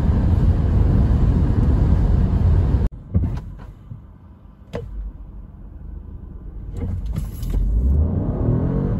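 Inside a BMW 225e Active Tourer at highway speed, loud steady road and wind noise stops abruptly about three seconds in. A quiet stationary cabin follows, with a few sharp clicks. Near the end the car pulls away at full throttle, and the noise builds again with a rising drivetrain whine.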